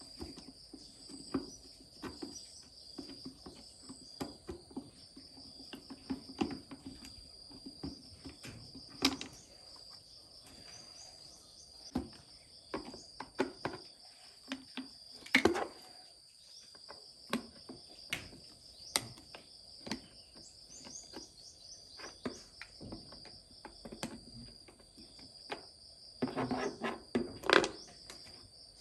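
Insects, crickets by the sound of it, chirring steadily and high-pitched throughout. Over them come irregular clicks and knocks from something being handled, with the loudest knocks about halfway through and again near the end.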